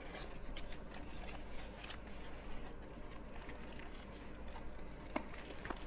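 Faint clicks and light rustling from a cardboard box and its packaging being handled and opened, over a low steady hum.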